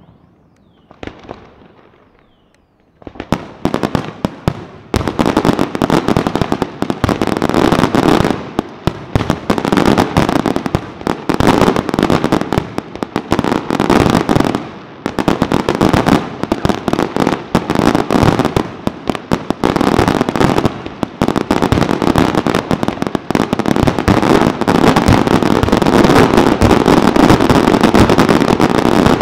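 Fireworks display: a few faint whistles and pops, then from about three seconds in a dense, rapid barrage of bangs and crackling that keeps up without a break.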